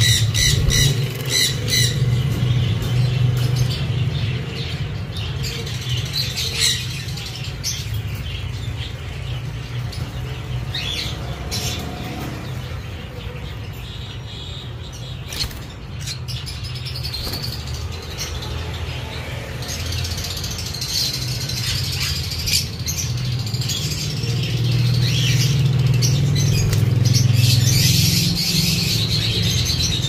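Pineapple green-cheeked conures chirping and squawking in short calls, with bursts of wing flapping, over a steady low hum.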